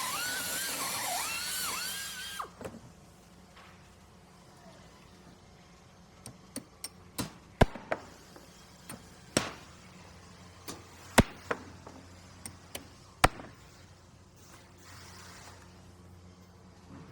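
Handheld power drill whining, its pitch repeatedly dipping and recovering, then cutting off about two seconds in. A scattered series of sharp knocks and clicks follows, the loudest sounds here, over a low steady hum.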